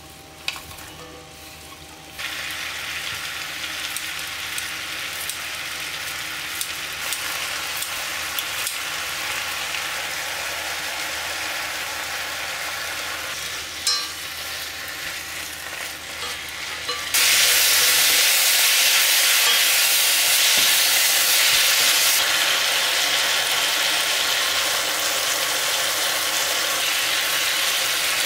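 Food sizzling in a hot frying pan, with a steady frying hiss that starts suddenly a couple of seconds in and turns much louder about seventeen seconds in.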